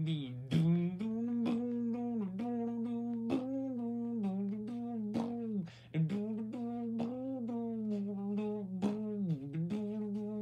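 A person's voice humming a wordless tune in short notes, each starting with a sharp, consonant-like attack, over a steady low hum.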